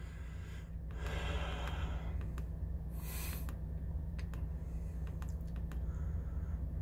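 Light clicks of a digital tachograph's menu buttons being pressed again and again, over a steady low engine hum. A short sniff comes about three seconds in.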